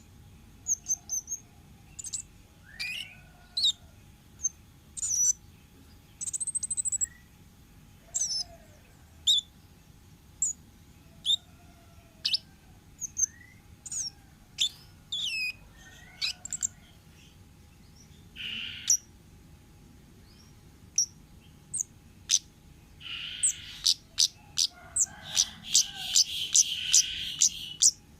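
Kemade songbird calling in the wild: sharp, high chirps and short whistled slurs at irregular intervals. About eighteen seconds in comes one harsh, rasping call, and near the end a fast run of chirps over a harsh chatter.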